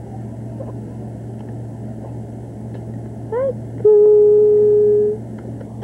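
Steady low hum under background noise. About three seconds in, a short rising-and-falling vocal note, then a loud steady voice-like note held for just over a second.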